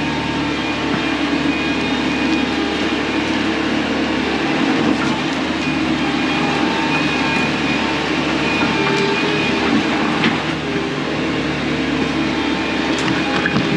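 Bobcat T630 compact track loader working: its diesel engine runs steadily under load, with a thin high tone that comes and goes and a few sharp clanks.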